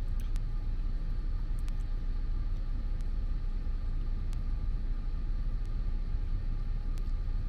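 Steady low rumble of background noise with a faint steady hum and a few faint ticks; no distinct event stands out.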